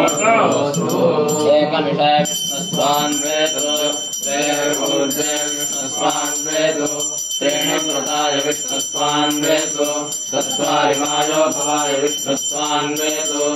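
Vedic mantras being chanted in drawn-out phrases, with a bell ringing steadily behind the voices.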